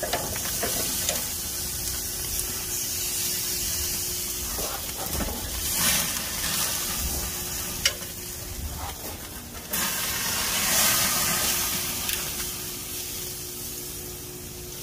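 Steaks and grease sizzling on a hot grill, a steady hiss that swells and eases, with a few sharp clicks of metal tongs against the grill grates as the steaks are lifted off.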